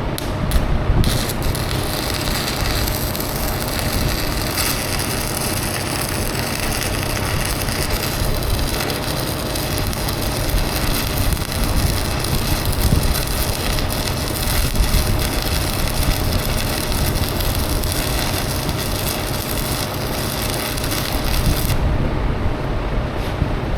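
Stick welding with a 6011 rod on the bucket's root pass: a steady arc crackle and sizzle that starts about a second in with a few sharp strike clicks and cuts off near the end. Under it runs the steady rush of a large fan.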